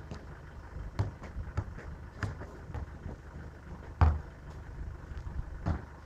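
Soccer ball being kicked and juggled: a run of irregular thuds, with one harder kick about four seconds in.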